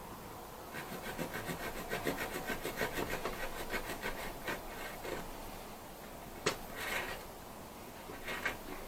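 Fast, even rasping strokes of synthetic rope being rubbed and worked by hand for about four seconds, as the ends of old and new halyard line are readied to be fused together, then a few separate sharp clicks.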